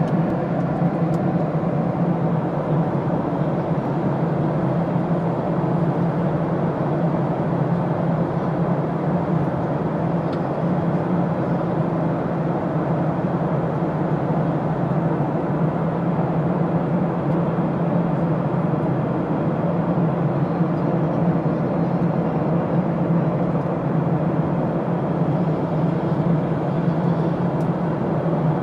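Steady cabin noise inside a Boeing 737 airliner in flight on descent: the even rush of engines and airflow over a low hum, unchanging.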